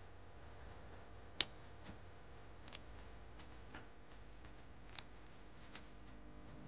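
Scattered sharp clicks and snips of small hand tools, metal forceps and a cutting tool, working on a cattle hoof: about nine irregular clicks, the loudest about a second and a half in.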